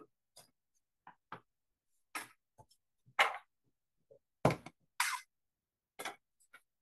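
Cardstock being handled on a paper trimmer: a series of short paper slides and light taps as pieces are picked up and laid down, with a louder knock about four and a half seconds in.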